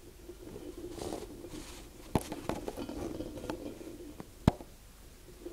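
Aluminium drink can spinning and rolling on its bottom rim on a stone countertop, a rough rattling rumble that rises and fades. Scattered clicks of the rim against the stone, with a sharp knock a little over two seconds in and a louder one about four and a half seconds in.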